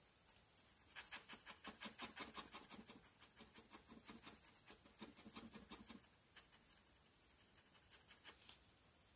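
Faint scratching of a black ink pen on drawing paper: quick, short strokes about five a second for some five seconds, then a few scattered single strokes near the end.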